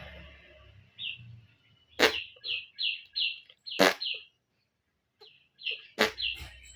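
Small bird giving a string of about ten short, high chirps, broken by three sharp clicks about two seconds apart.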